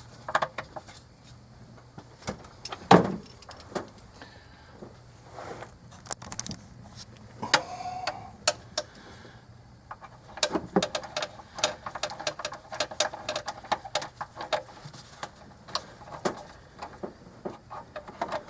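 Irregular clicks, taps and knocks of parts and bolts being handled as an intake manifold is worked onto an engine, with one louder thump about three seconds in; the manifold is not yet seated.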